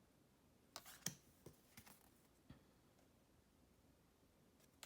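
Faint rustles and light clicks of oversized tarot cards being handled and laid down. There are several short soft sounds in the first half, the loudest about a second in, and one more at the very end.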